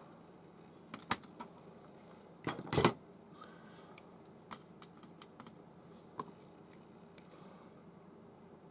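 Light, scattered clicks and taps of a small screwdriver and metal parts on a Tailwalk Wide Basal baitcasting reel as it is screwed back together, with a louder rattle about two and a half seconds in.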